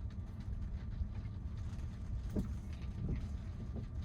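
Steady low rumble of tyres on a wet road, heard inside the cabin of a Tesla electric car driving slowly in the rain. There is no engine note, and a couple of faint short sounds come in over the second half.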